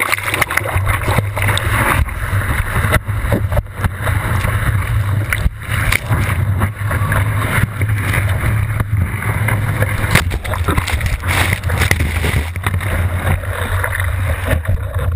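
Seawater rushing and splashing over a surfboard-mounted GoPro, with a loud low rumble of water and wind against the camera housing and frequent sudden splashes as the board paddles through and rides breaking surf.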